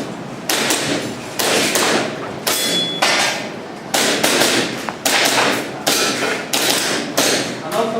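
Airsoft pistol shots fired one after another during a practical-shooting stage run: about a dozen sharp cracks at uneven intervals, each with a short decaying tail.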